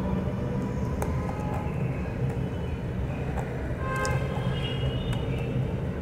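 A steady low rumble, over which a rabbit nibbles dry treats from a hand, giving a few faint crunching clicks.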